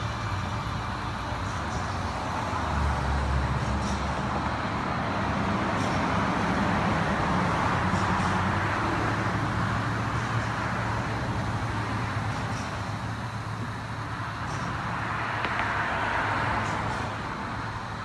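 Road traffic passing: a rushing noise that swells and fades twice, over a steady low hum.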